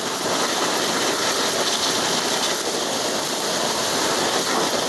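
STARQ ST2400U electric pressure washer running, its high-pressure water jet spraying steadily onto a muddy scooter mag wheel: a continuous hiss of water.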